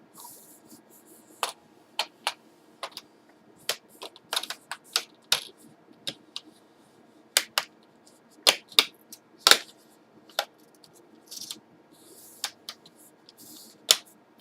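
Plastic clips of a laptop's screen bezel snapping into place as it is pressed home around the edges: a string of sharp, irregular clicks, loudest a little past halfway, with brief rubbing of hands on plastic in between.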